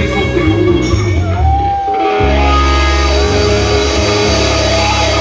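Live rock band playing through a PA: electric guitar, bass and drum kit, loud and steady, with a short break in the bass and drums about two seconds in before the full band comes back in.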